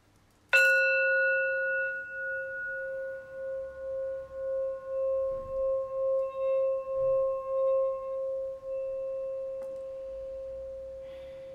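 Brass singing bowl struck once with its mallet about half a second in, ringing with a low main tone and several higher overtones. The mallet is then circled around the rim, so the tone swells and pulses about twice a second, and near the end it is left to ring and slowly fade.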